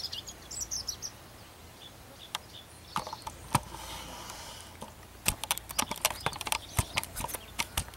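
Songbirds chirp briefly, then a rustle and a quick, irregular run of clicks and knocks from the camera being handled and turned around.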